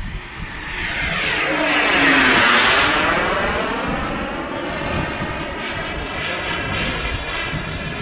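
Radio-controlled model airplane's engine flying past: it grows louder, peaks about two to three seconds in with its pitch dropping as it passes, then carries on more steadily and a little quieter as it flies away.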